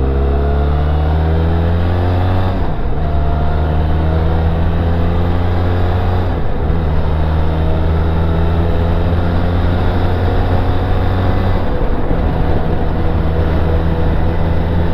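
Benelli TRK 502's parallel-twin engine on the move, climbing in pitch as it accelerates, with brief breaks at gear changes about three, six and a half and twelve seconds in, then running at a steady pitch.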